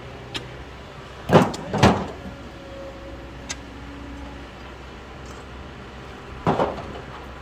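Stones being thrown into a metal tractor trailer: a loud clattering thud about a second in, another half a second later, and a third near the end, over the steady hum of a diesel engine.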